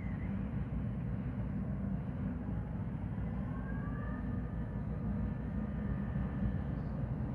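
Steady low rumble of outdoor noise, with a faint whine that rises slowly in pitch from about three seconds in.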